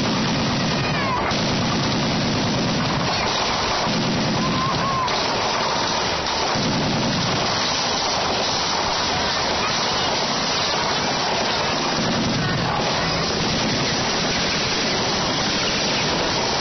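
Steady rushing noise of wind buffeting the microphone, with low rumbling gusts that come and go every second or two.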